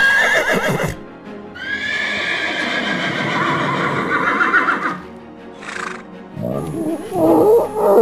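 A horse neighing: a short whinny, then a long, quavering whinny of about three seconds that drifts slightly down in pitch. A brief breathy burst comes a little before the end, and a lower, wavering call starts near the end.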